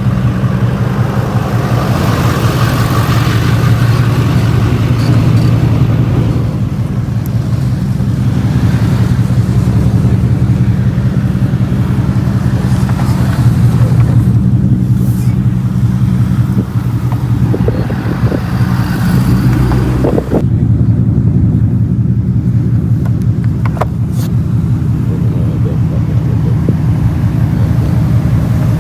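A car's V8 engine and exhaust running steadily while driving, a constant low engine note throughout; about twenty seconds in, the hissy road and wind noise drops away for a few seconds.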